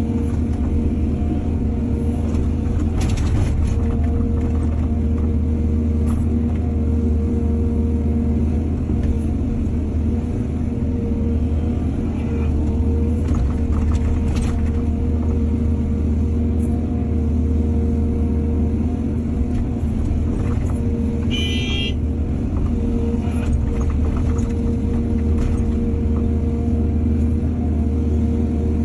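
Heavy diesel engine of an excavator running steadily under load, with a few sharp knocks or scrapes and a brief high-pitched squeal about three quarters of the way through.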